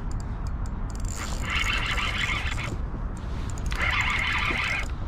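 Fishing reel being cranked in spurts of about a second, every two seconds or so, winding in a hooked striped bass, over a steady low rumble.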